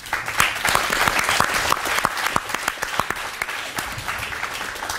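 Applause: many people clapping in a dense patter that swells quickly at the start and eases a little in the last second or two.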